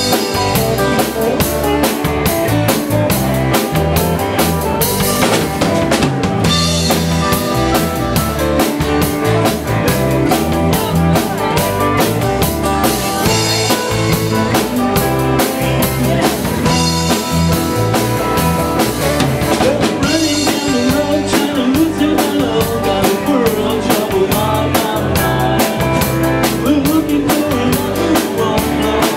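Live rock band playing, with a drum kit keeping a steady beat under electric bass and electric guitar.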